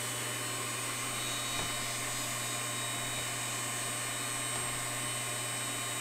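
Brushed DC motor running steadily at full speed on 24 V, a constant hum with a thin high whine. The MOSFET is fully on, so the full load current flows through the motor.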